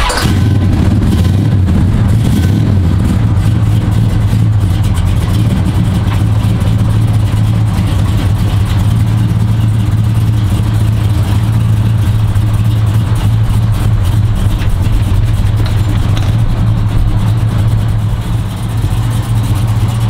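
V8 engine of a 1970 Plymouth Superbird muscle car running at a steady, loud idle.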